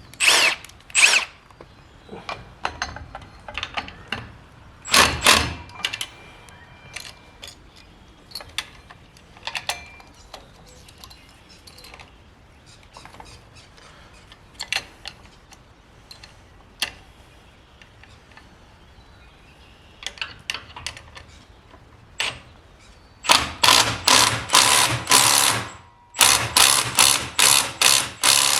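Impact wrench hammering bolts tight in two runs of rapid strokes, a few seconds each, near the end. Before that, scattered clicks and knocks of tools and hardware being handled.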